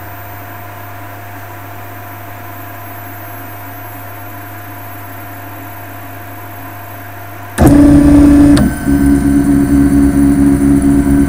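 A 3D printer running: a steady low hum, then about seven and a half seconds in its motors start moving, a much louder whir with steady tones that shifts once about a second later.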